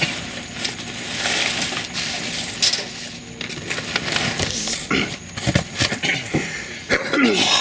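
Rummaging through trash in a dumpster: bags and boxes crunching and rustling, with scattered clatters of objects knocking together.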